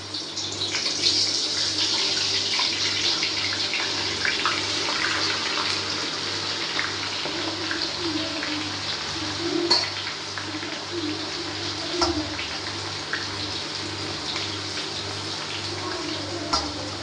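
Boiled jackfruit pieces sizzling and bubbling as they deep-fry in hot oil in an iron kadhai. It is a steady, dense sizzle that swells just after the start; the wet pieces make the oil froth. A few sharp clicks come in near the middle and near the end.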